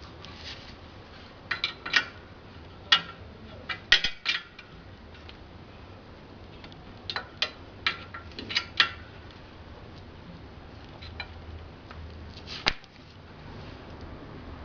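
Metal hand tools and suspension parts clinking as they are handled during repair work, with irregular sharp clinks in short clusters and quieter stretches between.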